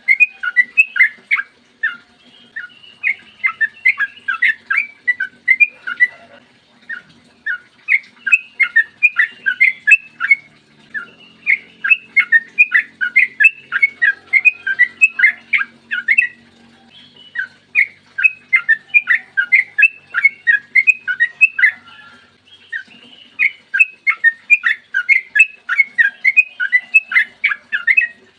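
Yellow-vented bulbul singing a long rapid song: runs of quick, sharp whistled notes, about four a second, with short pauses between phrases.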